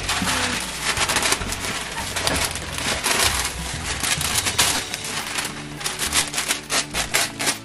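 Baking paper being pulled off its roll out of the box and handled, rustling and crinkling, with a fast run of sharp crackles near the end.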